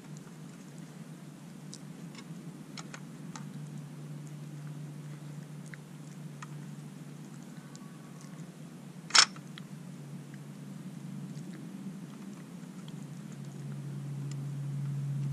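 Red fox nosing and eating at a plastic treat-puzzle feeder: scattered small plastic clicks and ticks, with one sharp, louder click about nine seconds in. A steady low hum runs underneath and grows louder near the end.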